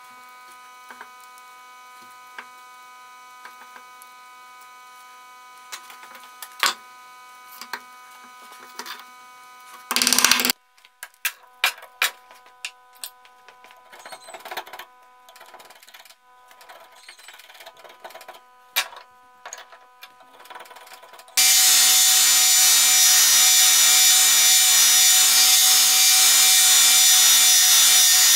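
Small clicks and knocks of handwork over a steady hum, with a short loud burst of noise just past a third of the way in. About three-quarters of the way in, a belt grinder abruptly cuts in, grinding the cleaver's wooden handle: a loud, steady noise.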